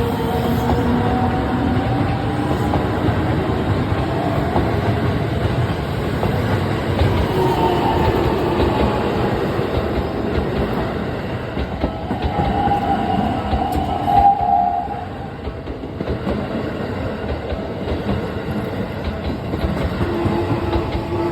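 Electric commuter train running over a level crossing: a steady loud rumble of wheels on rail with clickety-clack, and motor whines that slide up and down in pitch. The sound is loudest about fourteen seconds in.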